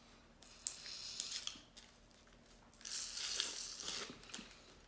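Plastic wrapper of a cheek swab crinkling and being torn open by hand, in two bursts of rustling about a second long each.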